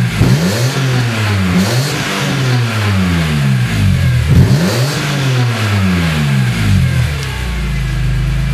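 BMW E46 M3's 3.2-litre S54 straight-six revved through its exhaust in a series of quick throttle blips, rising and falling in pitch. It settles back to a steady idle near the end.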